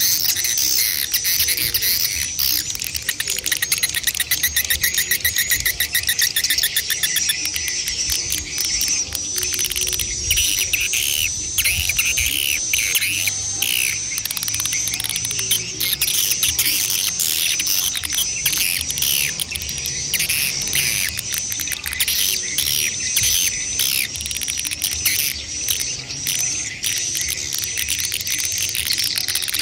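Swiftlet calls of adults and chicks: dense, high-pitched chirping and buzzing trills with no break, a high chirp repeating steadily throughout. A fast pulsing trill runs through the first several seconds, and louder chirps come in about a third of the way through.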